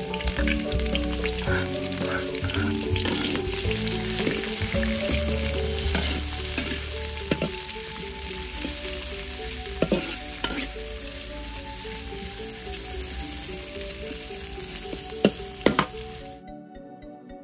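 Chopped garlic, shallots, onion, ginger, chillies and lime leaves sizzling in hot oil in a large wok as they are stir-fried, the metal spatula clinking against the pan a few times. The sizzling cuts off abruptly near the end, leaving soft background music.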